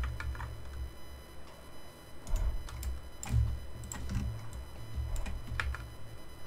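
Computer keyboard and mouse clicks, a dozen or so sharp, irregular taps while editing a 3D mesh, over an intermittent low rumble.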